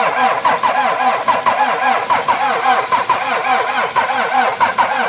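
Starter motor cranking a Toyota Mark II's turbodiesel in a -35 °C cold start, rising and falling in an even rhythm several times a second as each cylinder comes up on compression. The engine has not yet caught.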